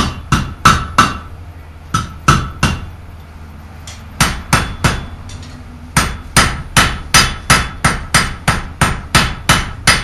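Blacksmith's hand hammer striking hot iron on an anvil, each blow ringing. The blows come in short groups of three or four, then settle into a steady run of about two and a half a second in the second half, forging the first part of a hook.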